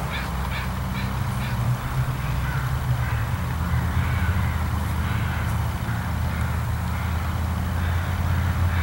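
Crows cawing now and then over a steady low rumble.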